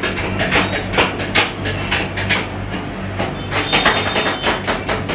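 Two metal spatulas chopping and scraping ice cream on a frozen steel cold plate, rolled-ice-cream style: quick clacks and scrapes, about three or four a second, over a steady low hum.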